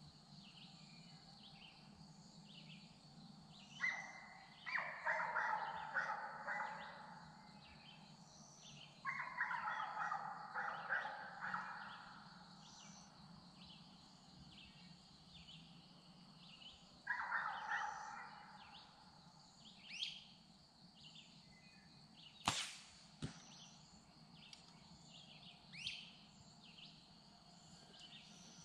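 Birds calling over a steady background of insects, with three longer calls in the first two-thirds and short chirps later. About two-thirds of the way through, one sharp smack: an arrow striking the target.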